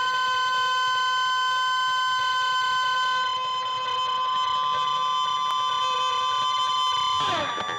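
Closing music of the song: a sustained chord of steady held tones, with the pitches sliding downward near the end as it dies away.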